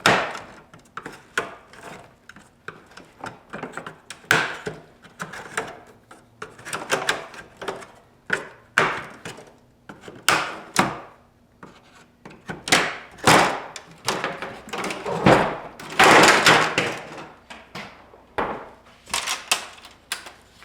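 Plastic front grille of a 2013 Audi S5 being pushed and worked free of the bumper cover: irregular plastic knocks, clicks and scraping as the clips give, with a longer, louder scraping rattle about three-quarters of the way through.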